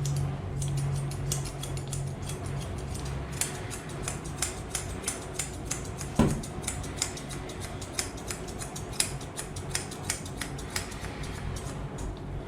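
Grooming scissors snipping a Pomeranian's fur in quick, irregular snips, a few a second. A low hum runs under the first few seconds, and there is one louder thump about six seconds in.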